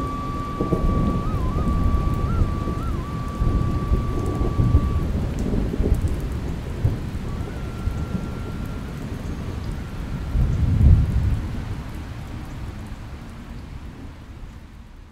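Thunder rumbling over steady rain, with the loudest rumble about eleven seconds in, then the storm sound fading out.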